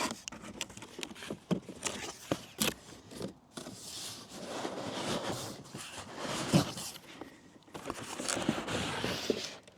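A cardboard box being opened and its packaging handled: rustling and scraping with scattered clicks and a few sharper knocks.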